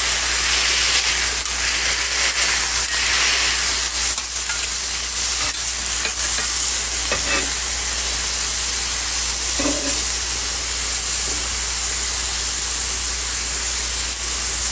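Ground-beef patties under a heap of thinly sliced onions sizzling steadily in a hot cast iron skillet as they are smashed flat with a metal spatula.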